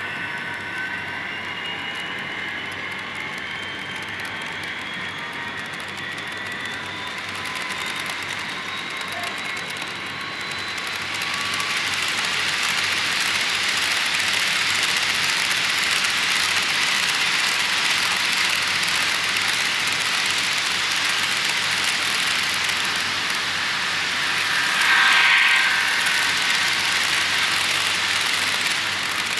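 HO scale model train cars rolling past on sectional track with plastic roadbed, making a steady hiss and rumble of small wheels on rail. In the first ten seconds thin squealing tones glide slowly upward. From about eleven seconds the rolling noise grows louder, and a brief louder squeal comes about 25 seconds in.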